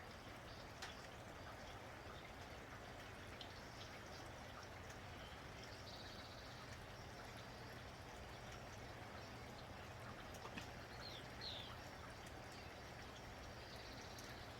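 Faint steady rain with scattered drips, and a bird chirping briefly a couple of times about ten seconds in.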